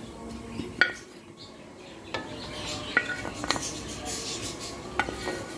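About five sharp clinks and knocks of a utensil against a cooking pot, each with a brief metallic ring, as pieces of fried potato are placed into a pot of meat curry.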